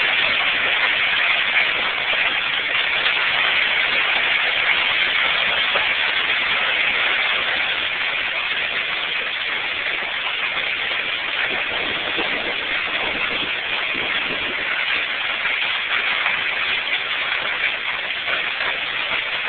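Hail and heavy rain pelting down in a dense, steady clatter, easing slightly about halfway through.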